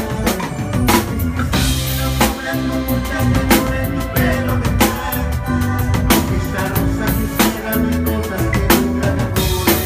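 Live band playing an instrumental passage: a drum kit keeps a steady beat over a bass line, with congas and electric guitar in the band.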